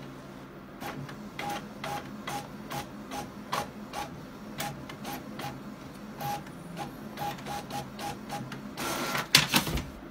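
Desktop inkjet printer printing a page: a run of quick mechanical clicks, about three a second, each with a brief tone, then a louder whirr near the end as the printed sheet is pushed out.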